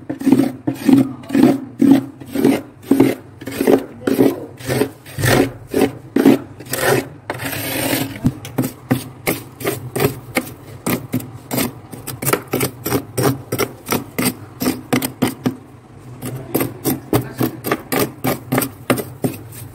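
Steel spoon scraping thick frost buildup off the inside of a freezer in short repeated strokes, about two a second and quicker later on, with one longer drawn-out scrape about eight seconds in.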